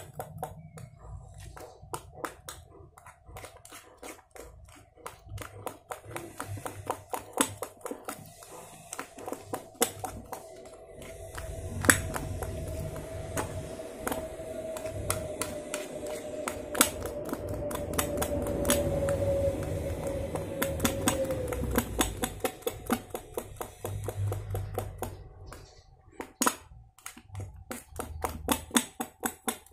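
Metal spoon stirring a foamy slime mixture in a glass bowl, clinking against the glass in quick, irregular taps. A low background rumble with a faint droning tone swells up in the middle and dies away.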